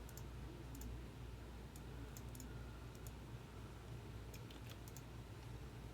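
Faint, irregular clicks at a computer, over a low steady hum.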